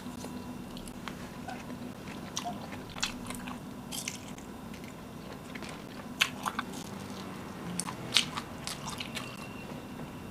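Close-miked eating: a person chewing, with scattered crisp, crunchy bites, the sharpest a couple of seconds apart in the second half.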